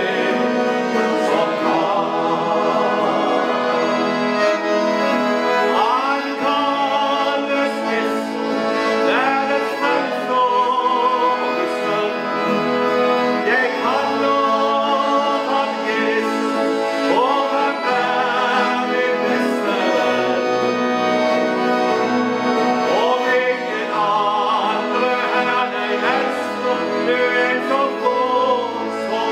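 A man singing a Norwegian gospel song while playing an accordion, the accordion holding sustained chords under the sung melody.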